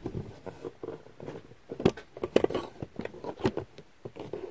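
Handling noise: irregular light clicks and taps, with a few sharper knocks about two and three and a half seconds in.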